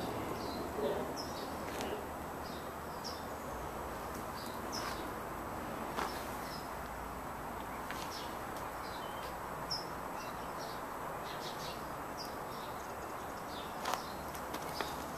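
Small birds chirping in short, high calls scattered throughout, over a steady background noise, with a few faint knocks.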